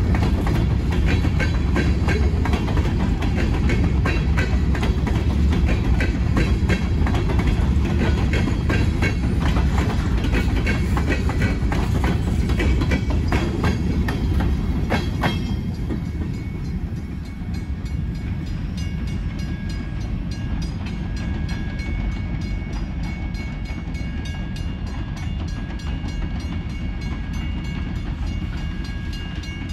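Freight train cars rolling past, wheels clicking rhythmically over the rail joints. About halfway through, the clatter eases and faint high steady squealing tones come and go.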